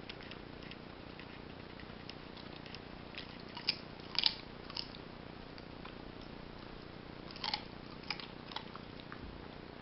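A Belgian Shepherd mix puppy chewing a piece of carrot, with sharp crunches in two clusters: one about four seconds in and a few more near the end.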